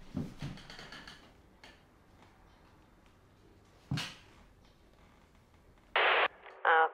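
Soft rustling, then a single sharp click as a TV remote is pressed. About two seconds later an old CRT television bursts into a short loud hiss of static, and a newscaster's voice starts through the set's small speaker near the end.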